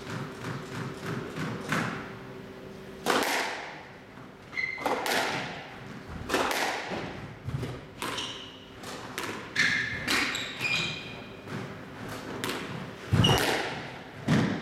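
Squash rally: a few light bounces of the ball on the floor before the serve, then the hard ball struck by rackets and hitting the walls, loud sharp smacks every one to two seconds with an echo off the court, with short squeaks of shoes on the court floor between them.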